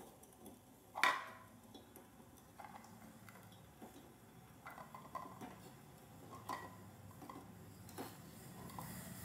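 Eggs being set one at a time into a stainless steel pot of hot water, the shells giving light clicks against the pot and each other. The loudest click is about a second in, with several fainter ones after.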